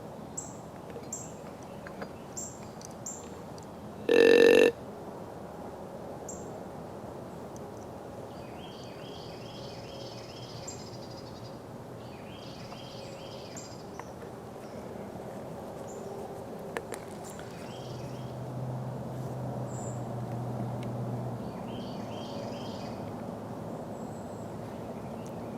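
One short, loud grunt about four seconds in. Songbirds chirp and sing now and then, and a faint low hum comes in past the middle.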